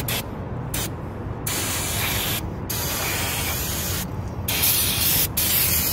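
Aerosol can of brake cleaner spraying onto the front brake caliper bracket in a string of hissing bursts: a short squirt, then several longer ones of about a second each with brief breaks between.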